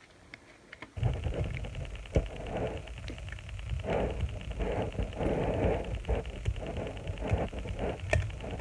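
Handling noise: fingers working the plastic body shell off a Kato model passenger car, with steady rubbing and scattered small clicks. It starts about a second in.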